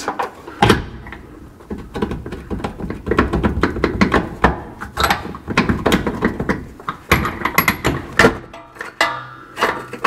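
Steel rear leaf spring bolt being wiggled and pulled out of its hanger by hand: irregular metal clicks, knocks and rattles, with a few brief high metallic rings.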